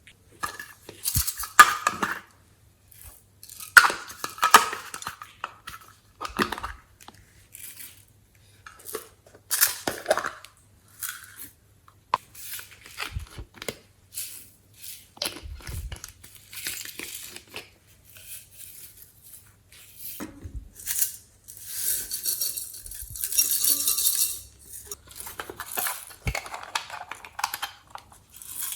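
Hands working glossy slime: irregular sticky crackles, squishes and pops as it is stretched and pressed, with a denser run of crackling about two-thirds of the way through.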